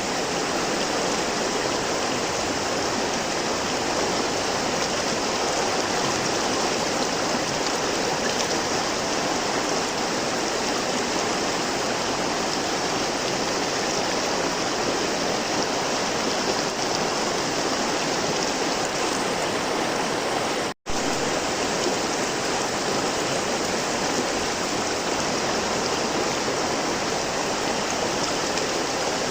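River water flowing steadily, an even unbroken rush of water. It cuts out completely for a split second about two-thirds of the way through, then resumes unchanged.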